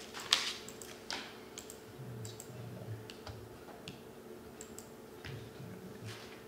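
Sparse light clicks and taps, about one a second, over a steady faint room hum, as people work at a meeting table with laptops and papers; one sharper click comes just after the start.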